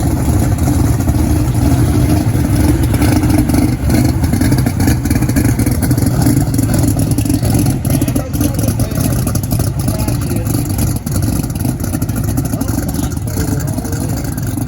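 A car engine running loud and steady, with a deep low drone that holds much the same level throughout.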